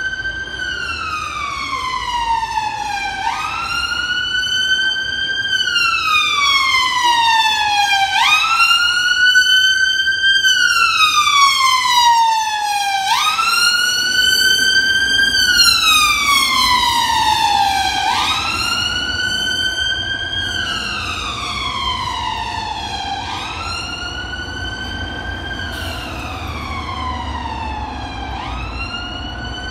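Mercedes Sprinter ambulance's two-tone wail siren sounding on an emergency response, rising and falling slowly, about five seconds per cycle. It grows louder as the ambulance approaches, is loudest as it passes about ten to twelve seconds in, then fades as it drives away, over a low rumble of traffic.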